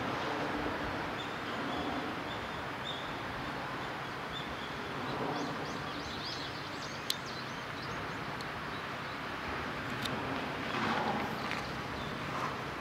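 Steady outdoor background noise with a few short, high bird chirps, a sharp click about seven seconds in, and a brief louder patch near the end.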